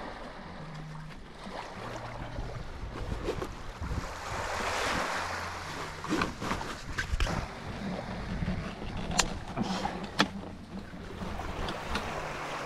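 Small waves washing in at the water's edge, one swell peaking about five seconds in, with wind rumbling on the microphone. A few sharp clicks and knocks come in the second half.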